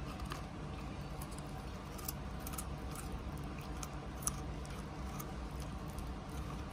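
A puppy biting and chewing a raw carrot: irregular crisp crunches, several a second at times, over a steady low hum.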